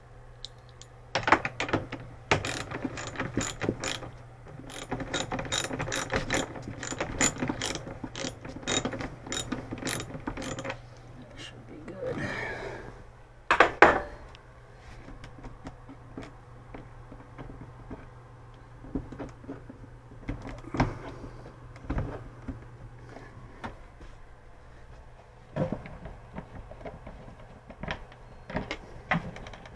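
Ratchet wrench with a socket clicking rapidly as fridge door hinge screws are backed out, for about ten seconds. A louder clatter follows, then a few scattered knocks.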